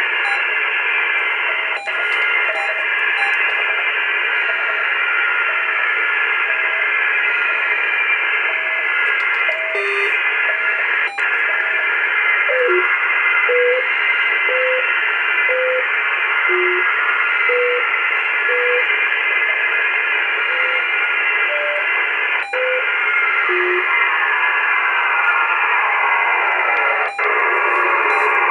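AOR AR-8600 communications receiver in upper sideband around 3.33 MHz putting out steady shortwave band noise, with short tones of varying pitch about once a second and a few sharp clicks. Near the end, as the frequency is tuned, whistles slide downward in pitch.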